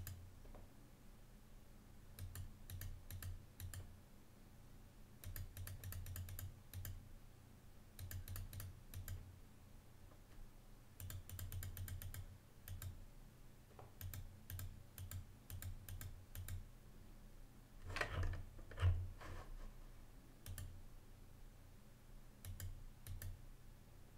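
Computer mouse clicking in quick runs of sharp clicks, pressed again and again on a browser's find-next button, with two or three louder soft knocks about three quarters of the way through.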